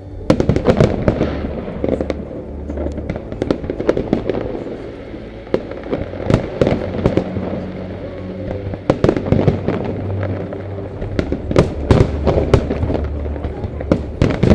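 Fireworks display: a rapid, irregular run of sharp shell bursts and bangs, several a second at times, starting about a third of a second in and going on throughout.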